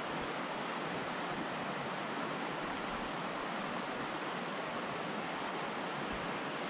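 Steady rush of a mountain stream's water flowing over rocks.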